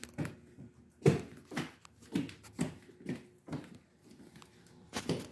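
Footsteps on a wooden plank floor, about two steps a second, pausing for a moment before a last pair of steps near the end.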